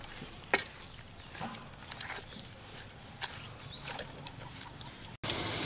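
Metal spoon scraping and clinking against a steel pot while mixing a moist minced meat mixture, with soft wet squelches and one sharper clink about half a second in. Near the end it gives way to a louder steady hiss.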